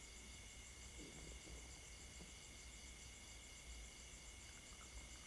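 Faint, steady chorus of insects trilling at several high pitches, one of them pulsing rapidly, over a low rumble.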